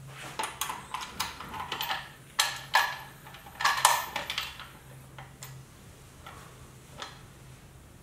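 Light clicks, taps and scrapes from a chrome Harley-Davidson air cleaner cover being handled and fitted into place, metal against metal. The clicks are thick over the first four seconds or so, then thin out to a few ticks.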